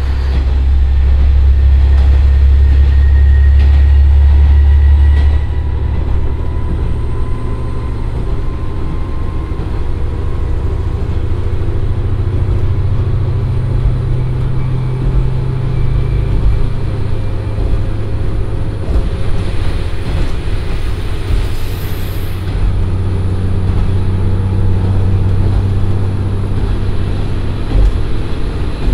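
The Komatsu SA6D140HE-2 common-rail diesel engine of a JR Shikoku 1500 series railcar under power while the railcar accelerates, heard from inside the passenger cabin along with the running noise of the wheels on the rails. The engine is loudest for the first five seconds, then drops off suddenly; later, lower engine tones rise and fall.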